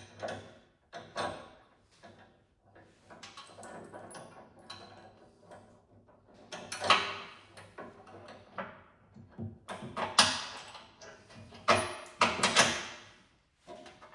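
Irregular clanks, knocks and scrapes of metal brackets, bolts and hand tools being handled while a drag blade attachment is bolted onto a snow plow blade. The loudest clatter comes about halfway through and again near the end.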